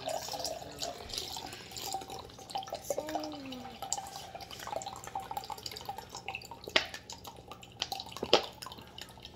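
A thin stream of blue drink squeezed from a small plastic barrel-shaped bottle, trickling and splashing into a partly filled glass of liquid. Two sharp clicks near the end, the second the loudest.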